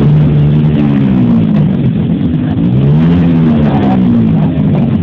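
An engine revving nearby, its pitch rising and falling in two slow swells.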